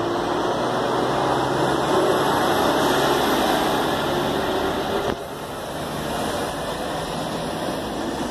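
NCTD Sprinter Siemens Desiro diesel railcar pulling out of the station and passing close by: steady diesel engine hum under running noise. The sound drops abruptly about five seconds in.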